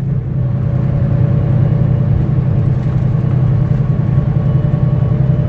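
Semi truck's diesel engine and road noise droning steadily inside the cab while driving.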